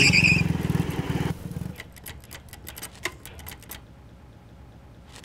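Motorcycle engines idling, cut off just under two seconds in, followed by a run of sharp clicks and ticks and a single click near the end.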